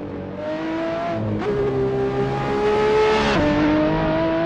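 Race car engine sound effect: a steady engine note that jumps up in pitch about a second and a half in and drops back down about two seconds later.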